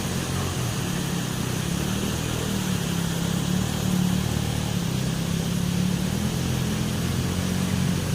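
River water rushing in a steady, unbroken roar.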